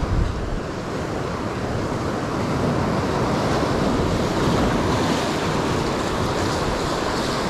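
Ocean surf washing up the beach, a steady rush that swells to a peak about halfway through, with wind buffeting the microphone.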